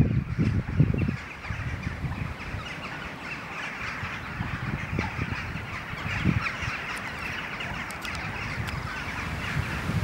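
Massed chatter of a large flock of European starlings: a dense, steady wash of squeaks and whistles. Low rumbles break in during the first second and again briefly about six seconds in.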